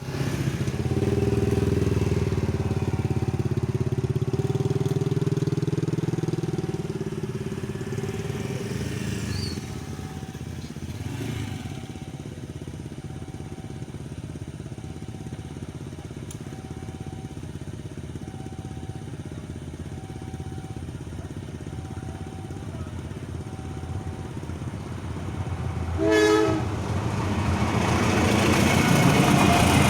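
Motorcycles and other road traffic pass for the first several seconds, with a faint short tone repeating about every two seconds. About 26 s in a train horn blows once, and the rumble of the approaching train grows louder to the end.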